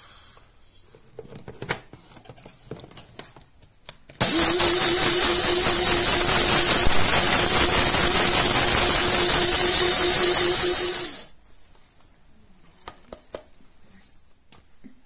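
Electric spice grinder running for about seven seconds, grinding toasted seeds coarsely, with a steady motor whine that starts suddenly about four seconds in. Light clicks and taps come before and after it as the grinder is handled.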